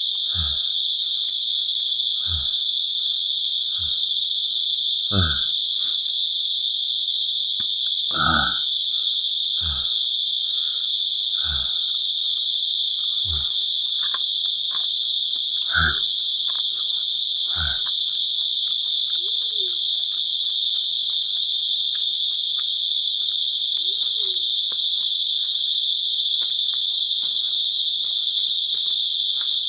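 Steady, loud chorus of forest insects, a continuous high-pitched drone. About ten short close-up sounds that fall in pitch come over the first eighteen seconds, roughly every one and a half to two seconds, then stop.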